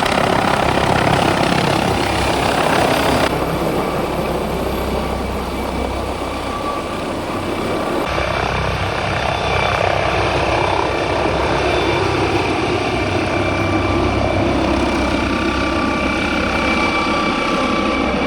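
Skis sliding on snow, with wind rushing over the microphone during a ski descent: a loud, steady rushing noise with a deep rumble underneath.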